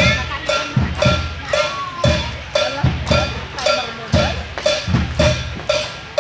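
Children's drum band percussion keeping a steady beat: a ringing clank about twice a second over deep drum thumps about once a second.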